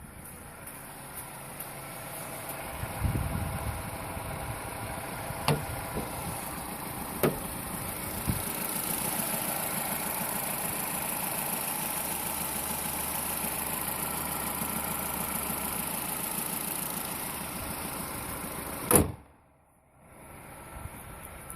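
Opel Meriva A's 1.4 Twinport four-cylinder petrol engine running steadily, with a few light clicks and a sharp knock near the end.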